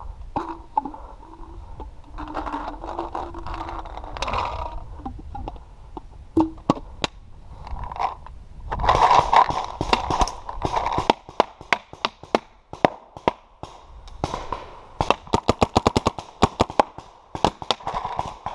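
Paintball markers firing: scattered single pops through the first half, then fast strings of shots, about six a second, over the last few seconds.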